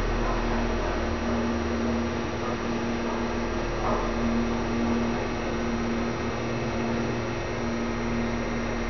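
Otis belt-driven traction elevator car travelling down, heard from inside the car: a steady electric hum and whir from the drive and car equipment.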